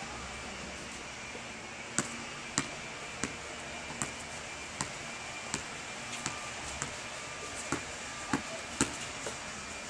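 A basketball bouncing on an outdoor asphalt court: a series of sharp single bounces, roughly one every half second to a second, starting about two seconds in.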